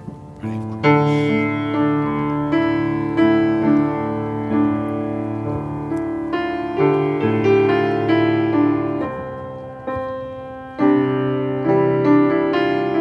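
Piano playing slow, sustained chords, each struck and left to fade, with the music breaking off at the very end.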